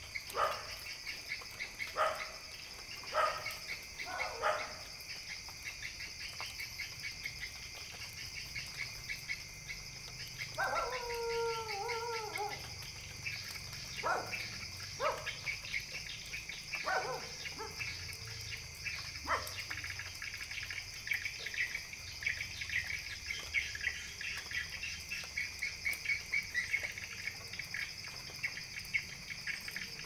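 A dog barking in short calls every second or few, with one longer wavering, falling howl about 11 seconds in, over a steady high-pitched chirring.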